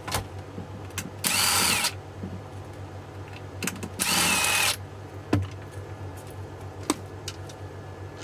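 Power screwdriver backing out Phillips screws from the bottom of an e-bike battery case: two short bursts of motor whine, each under a second, the pitch rising and then falling, followed by a few sharp clicks.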